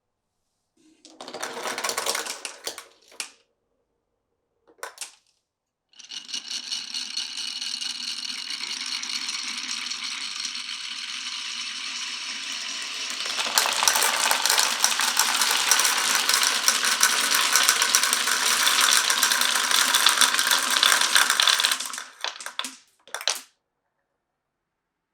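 Glass marbles rolling and clattering along a marble-run track. A short stretch of clatter and a single click come first. From about six seconds in there is a long, continuous rolling sound with a ringing edge, which gets louder about halfway through. It ends in a few sharp clicks as the marbles come to rest.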